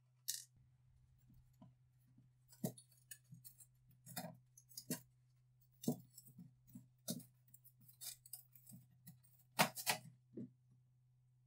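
A series of irregular light clicks and knocks, with a sharp click right at the start and the loudest pair of knocks near the end, over a steady low hum.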